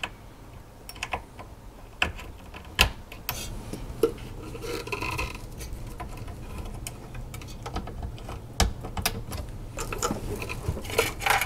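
Power-supply cables and their plastic connectors clicking and clattering as they are handled and plugged into a motherboard: a string of irregular sharp clicks and knocks.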